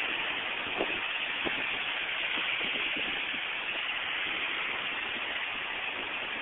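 Surf breaking and washing onto a pebble shore: a steady hiss, with a couple of faint clicks about a second in.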